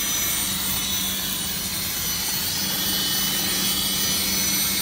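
CNC fiber laser cutting machine cutting through metal plate: a steady hiss of the cutting jet and spraying sparks, with a steady low hum underneath.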